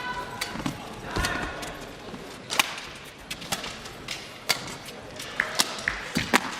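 Badminton rackets striking the shuttlecock in a rally, sharp hits about once a second, with shoe squeaks on the court near the end over the murmur of an arena crowd.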